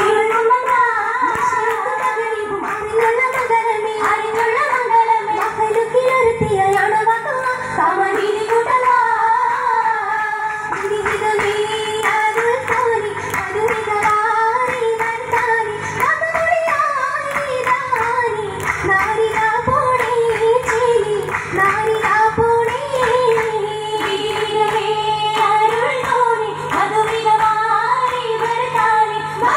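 Oppana performance: a group of girls' voices singing a Mappila song in chorus, with rhythmic hand-clapping throughout.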